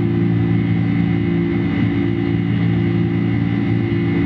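Boeing 747-400's General Electric CF6 turbofan engines running at climb power just after takeoff, heard from inside the passenger cabin: a steady roar with several constant hums and a faint high whine.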